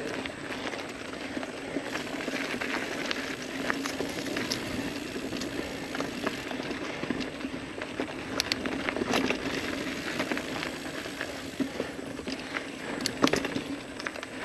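Ibis Ripley mountain bike rolling down a dirt singletrack: a steady rush of tyre noise on the trail, with scattered sharp clicks and rattles from the bike over bumps, the loudest a little before the end.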